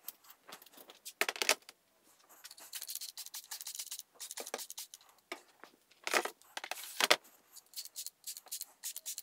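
Hand trigger spray bottle squirting degreaser over and over onto a metal honeycomb laser bed in a plastic tote, a short hiss with each pull of the trigger. A louder clatter comes about a second in.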